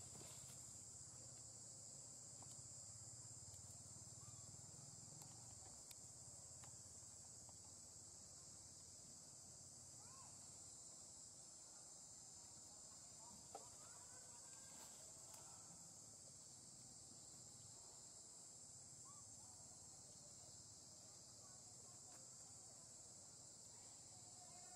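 Faint, steady chorus of insects, an even high buzz, with a few faint short chirps over it.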